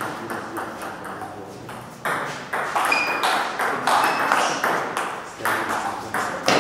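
Table tennis rally: the celluloid ball clicking back and forth off the paddles and the Cornilleau 540 table, each hit trailing a short echo in a large hall. The hits become louder about two seconds in.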